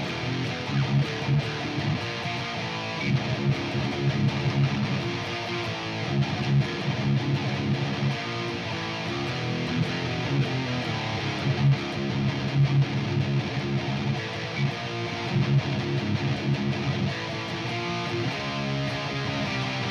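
Electric guitar being played, strummed chords and riffs that run on without a break.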